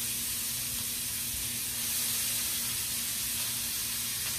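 Diced onions and peppers sizzling steadily in hot butter and olive oil in a skillet.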